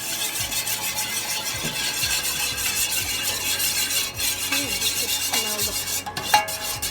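Spoon stirring and scraping a thick sauce in a pan on the heat over a steady sizzling hiss. Near the end the spoon clinks against the pan a few times with a brief metallic ring.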